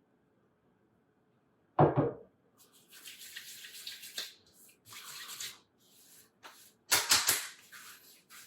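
Water being splashed and rubbed by hand at a sink, in irregular stretches, with a single loud thump about two seconds in.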